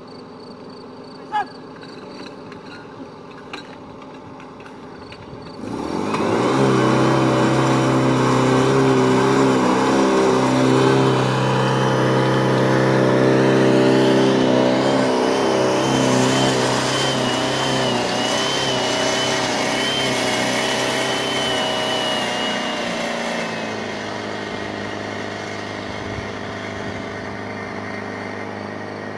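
Portable fire pump's petrol engine starting abruptly about five seconds in and running hard at a steady high speed, with a high wavering whine over it, pumping water out to the fire hoses. It gets somewhat quieter about 23 seconds in.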